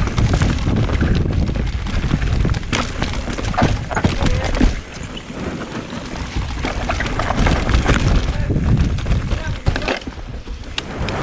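Mountain bike riding over a loose, dry trail: wind rumbling on the microphone, tyre noise on the dirt, and the bike rattling and knocking over bumps.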